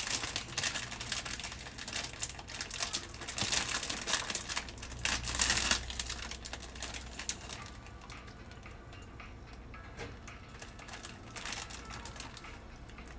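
Plastic packaging crinkling and rustling as it is handled, in dense irregular bursts through the first several seconds, then only a few faint rustles.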